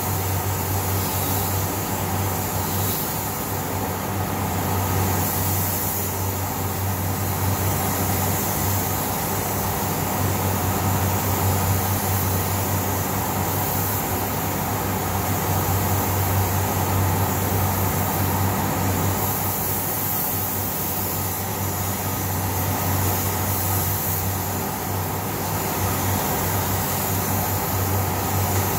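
Steady hiss of a gravity-feed spray gun spraying car paint, over a constant low hum and drone from the spray booth's air handling.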